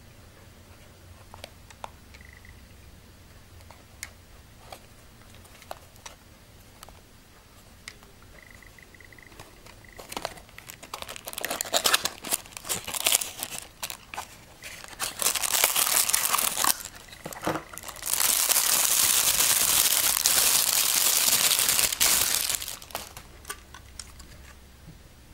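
A small retail box and its plastic wrapping being opened by hand. A few light clicks and taps come first. From about ten seconds in there is loud crinkling of packaging, ending in about four seconds of continuous crinkling and rustling of plastic.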